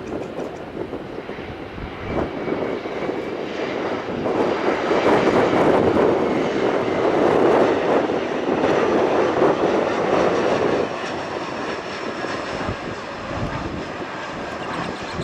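Jet airliner's engines passing by: a broad rushing noise with a faint high whine that builds, is loudest through the middle, then fades away.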